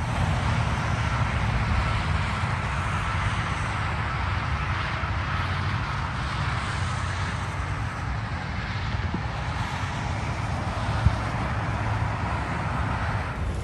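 Steady road traffic noise: a constant low rumble of vehicles with tyre hiss.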